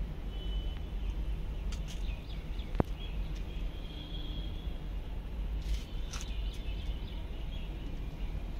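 Open-air rooftop ambience: a steady low rumble with faint high bird chirps scattered through it, and one sharp click about three seconds in.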